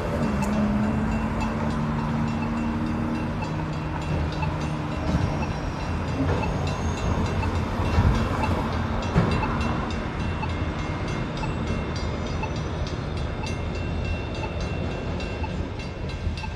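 Union Pacific freight train cars rolling past a grade crossing: a steady rumble of wheels on rail with faint regular clicking. A pitched engine hum fades out in the first few seconds.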